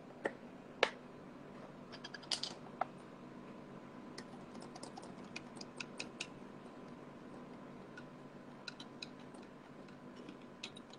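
Quiet, irregular small clicks and taps of a plastic spoon against a small paint bottle and a plastic cup as gold acrylic paint is scooped out, with a few louder knocks in the first three seconds.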